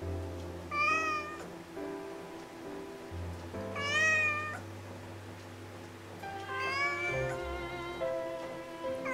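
Orange-and-white cat meowing three times, short calls that rise and fall in pitch, over soft background music.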